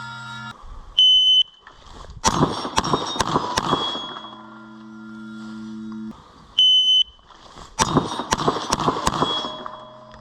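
A shot timer's start beep, then a quick string of about five or six gunshots, each hit ringing on steel plates. The whole sequence happens twice: a loud steady beep, a pause of about a second, then the shots and the ringing steel.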